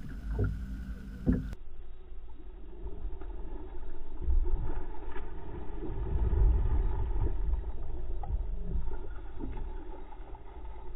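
A hooked fish thrashing and splashing at the landing net beside a small boat, over a low rumble of wind and water on the camera's microphone that swells in the middle. A couple of sharp knocks near the start.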